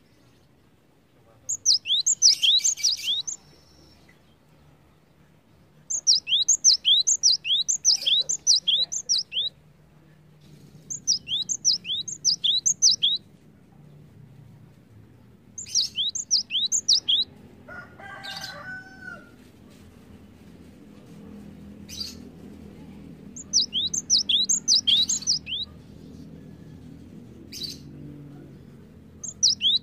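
Cinereous tit singing: about six short runs of rapid, sharp, high whistled notes, each note falling in pitch, with pauses between the runs. A lower, different call comes about two-thirds of the way through, over a faint low hum.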